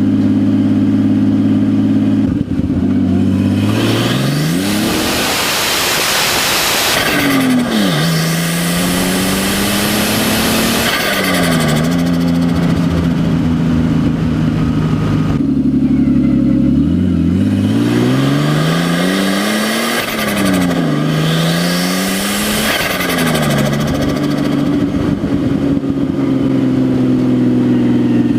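Nissan RB25DET turbocharged inline-six with no exhaust and no blow-off valve, revved up and dropped back to idle about four times. The turbo flutters (compressor surge) as the throttle snaps shut.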